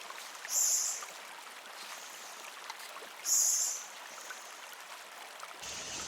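Steady trickling of running water, over which come two short, very high-pitched hissing sounds about three seconds apart.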